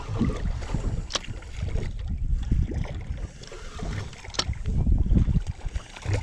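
Wind buffeting the microphone on a small fishing boat, an uneven low rumble, with two short sharp knocks about a second in and again about four seconds in.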